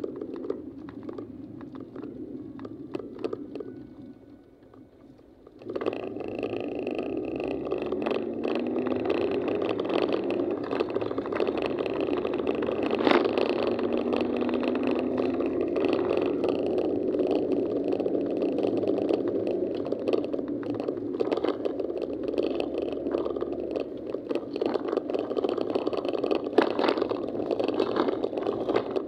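Car driving noise heard inside the cabin through a dashboard camera: engine and road noise, with a few clicks at first. The noise jumps suddenly louder about six seconds in, and the engine note rises for a few seconds after as the car speeds up.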